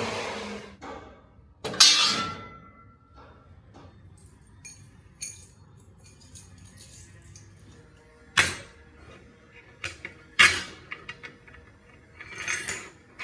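Metal pieces knocking and clinking on a workbench: a few sharp hits with a short ring, about two seconds in, after eight seconds and after ten, with lighter clicks between and a scraping shuffle near the end.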